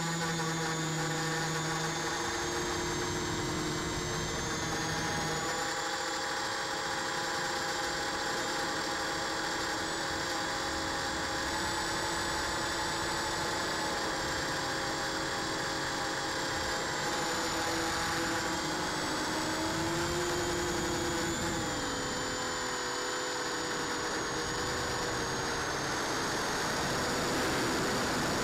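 Small drone's electric motors and propellers whining steadily, with several tones whose pitch drifts slowly up and down.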